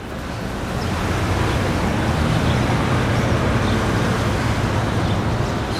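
Big-city traffic ambience: a steady rumble of road traffic that fades in over the first second, with faint short high sounds scattered over it.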